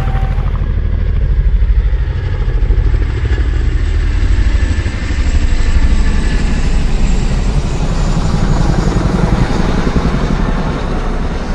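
A motor vehicle engine running loudly with a deep, fast pulsing beat, its loudness swelling and easing about once a second.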